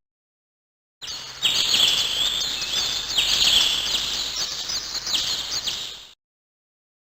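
A Samsung SGH-X460 built-in ringtone of recorded birdsong: birds chirping and tweeting over a steady outdoor hiss. It starts about a second in and fades out near the end.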